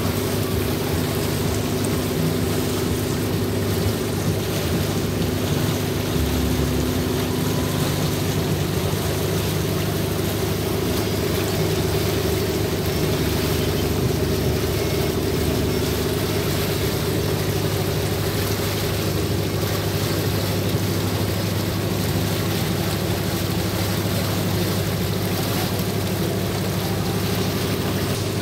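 Boat engine running steadily, a low hum with several tones, under a steady rush of wind and water noise.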